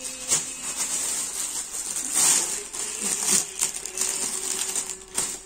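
Rustling and crinkling handling noise as stoles are handled, with a few sharper clicks.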